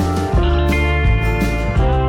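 Background music: guitar-led country-style instrumental with a steady bass.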